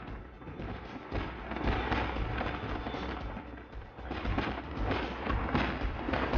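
Aerial fireworks bursting in the sky: a run of bangs and crackling that grows louder about a second in.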